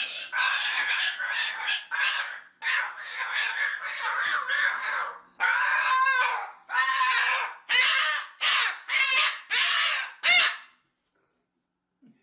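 Moluccan (salmon-crested) cockatoo squawking and chattering in a run of harsh calls, ending with a string of short squawks about twice a second that stop suddenly about a second and a half before the end.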